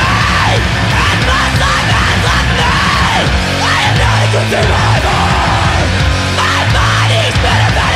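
Loud heavy rock music with yelled vocals over a dense, driving backing.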